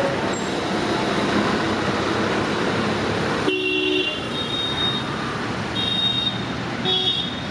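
Steady road traffic noise with vehicle horns honking several times in short flat-pitched toots, the first about three and a half seconds in.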